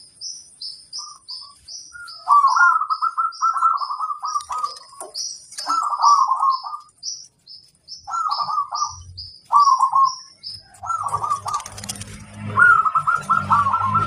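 Zebra dove (perkutut) cooing in short rolling phrases, repeated several times with pauses between, over a steady run of short high chirps from another bird, about three a second.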